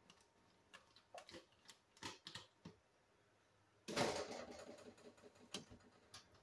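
Faint clicks and taps of a plastic container against a plastic bowl as chopped bell pepper and onion are tipped in, with a louder, short clatter of handling about four seconds in.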